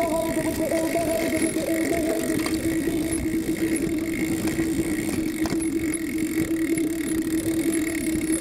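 Motorcycle engine running at a steady pitch, with a rough, irregular rumble underneath from riding over a bumpy dirt track.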